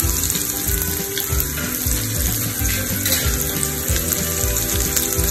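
Sliced shallots and garlic sizzling steadily as they fry in hot oil, over background music with a beat.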